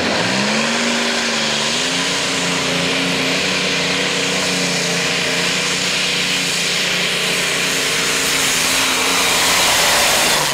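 Multi-engine modified pulling tractor at full throttle under load while pulling the sled: the engine note climbs over the first two seconds, then holds loud and steady at high revs.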